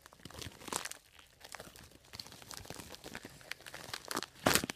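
Packaging wrapper being crinkled and torn open by hand, in irregular crackles, with one louder, sharper crackle near the end.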